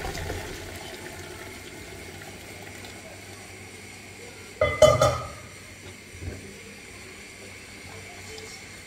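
Water flowing in a kitchen sink, the water being drained off cooked pasta, with one ringing clank of a metal pot about five seconds in.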